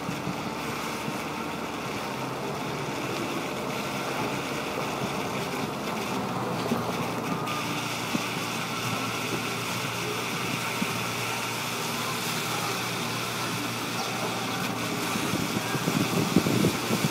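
Steady road noise inside a moving car: engine hum and tyres on wet pavement, growing louder near the end.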